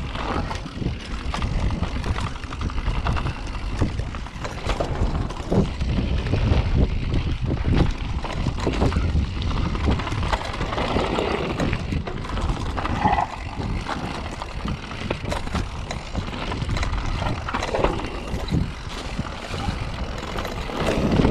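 Mountain bike ridden over a rough dirt trail, its frame and chain rattling and knocking over bumps, with a steady low wind rumble on the camera microphone.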